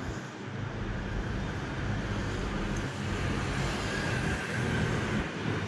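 Road traffic noise: a steady wash of passing vehicles with a low engine hum.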